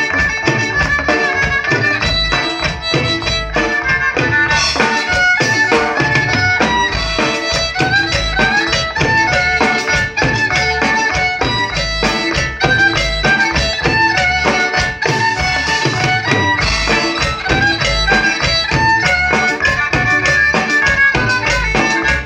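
Live band playing a tune: a violin melody over drum kit, bass and guitar, with a steady beat throughout.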